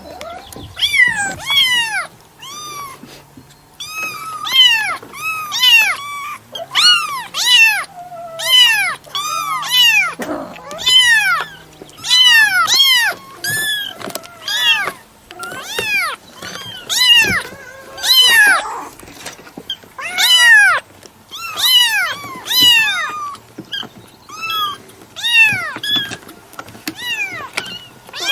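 A cat meowing over and over: dozens of short, high meows in quick runs, each rising and then falling in pitch.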